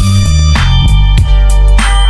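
Loud music with a heavy, shifting bass line and a regular beat of sharp hits about twice a second.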